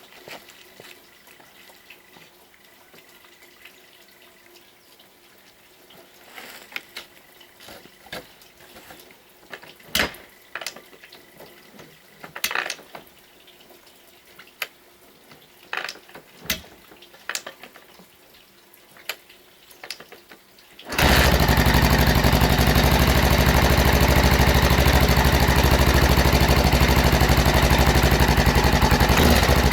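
Scattered clicks and knocks, then a 1992 Honda XR600R's single-cylinder four-stroke engine starts from cold about two-thirds of the way through and runs loud and steady, with a mechanical rattle that the owner puts down to the timing (cam) chain.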